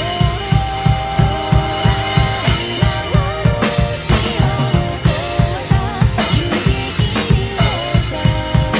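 Drum kit played along to the song's backing track: rapid, driving bass-drum strokes, several a second, with snare and cymbals over a sustained melodic instrumental line.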